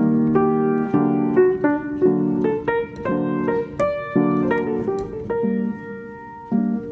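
Background music: a piano melody over chords, the notes striking and fading in quick succession.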